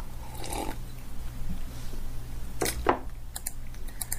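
Pause in a recorded talk: room tone with a steady low electrical hum and a few faint clicks and short noises.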